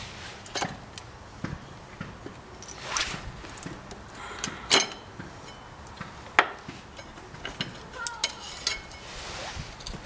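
Small metallic clicks and clinks as the brake pads and pad pin are worked out of a motorcycle's rear brake caliper by hand, coming irregularly with a few sharper knocks.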